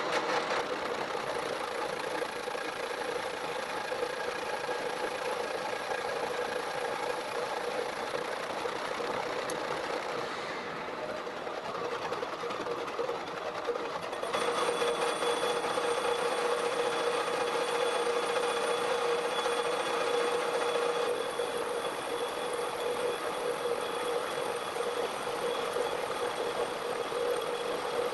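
Metal lathe running under cut, its tool turning down the outside of a spinning steel drill-pipe section: a steady machine hum with a whine on top. The sound grows slightly louder and its tone stronger about halfway through.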